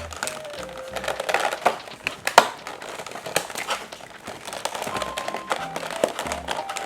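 Plastic toy packaging crinkling and crackling as it is handled and opened, with one sharp crack about two and a half seconds in, over a simple background tune.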